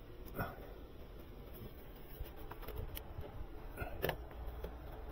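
Faint, scattered light clicks and knocks of hand work on a car's steering parts, with a couple of sharper clicks about three and four seconds in.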